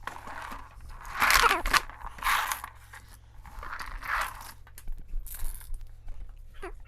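Items being handled: several short bursts of rustling and scraping, the loudest about a second in and again just after two seconds.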